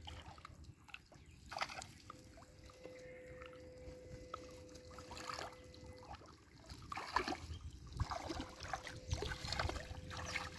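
Shallow pond water sloshing and trickling in small, irregular splashes that grow busier in the second half, with a faint steady hum underneath.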